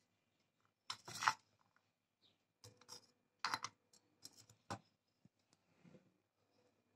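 A handful of short scratchy, crackly handling sounds, the first about a second in and the loudest, the rest spread over the next few seconds.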